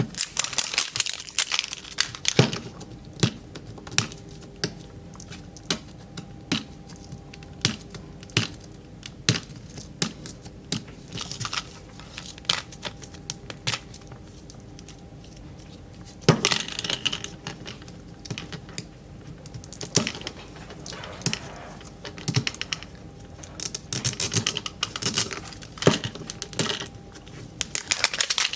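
Plastic wrap being torn and crinkled off Mini Brands toy capsules, with many scattered sharp clicks and taps, and heavier stretches of crinkling near the start, about halfway through and near the end.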